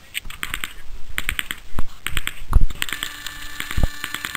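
Gunfire on an outdoor range: short strings of rapid, evenly spaced sharp cracks, like bursts of automatic fire, with a few single louder shots about two seconds in and again near the end.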